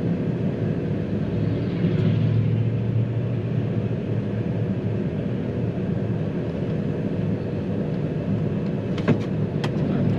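Steady engine drone of slow-moving heavy farm equipment driving on the road, heard from the cab, with a few sharp clicks about nine seconds in.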